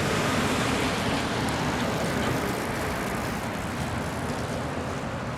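Street vehicle running noise, a steady rumble that slowly fades.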